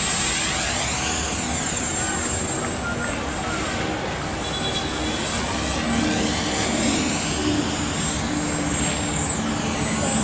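Radio-controlled model helicopter in flight, its rotor and motor giving a high whine that rises and falls in pitch as it moves about.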